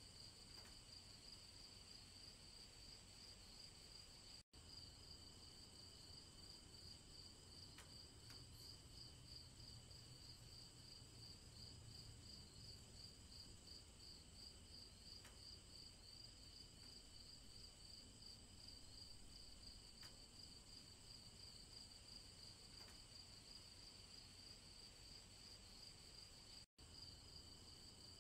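Faint, steady chorus of crickets chirring in a fast, even pulse. It cuts out for an instant twice.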